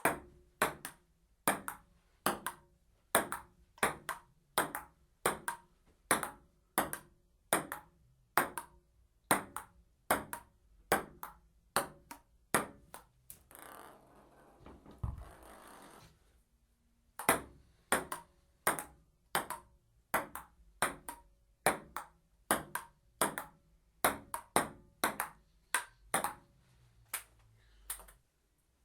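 Table tennis rally: a celluloid ball clicking off paddles and table in a steady back-and-forth, about one and a half hits a second. Midway the rally breaks off for a couple of seconds of soft rustling with a dull thump, then starts again.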